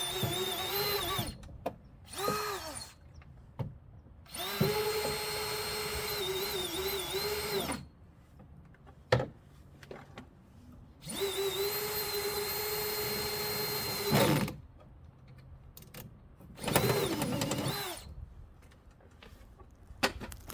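Power drill drilling a hole into a car door panel, running in several bursts of one to three and a half seconds with pauses between; the motor whine holds steady in pitch and wavers on the last run. A sharp click comes about nine seconds in.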